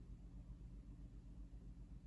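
Near silence: room tone with a faint, steady low hum.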